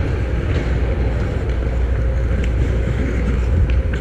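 Ice hockey play in close: skates scraping and carving the ice over a steady low rumble, with a few faint clicks of sticks and puck.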